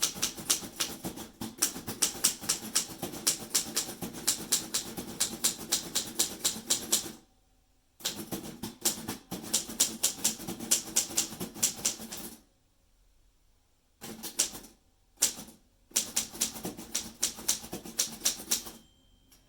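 Manual typewriter being typed on: type bars strike the platen in quick runs of keystrokes, several a second, with short pauses between runs. Near the end the carriage bell dings once, signalling that only a few spaces are left on the line.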